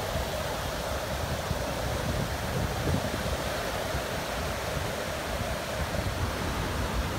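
Ocean surf: small waves breaking and washing up the shallows in a steady rush, with uneven low rumble of wind on the microphone.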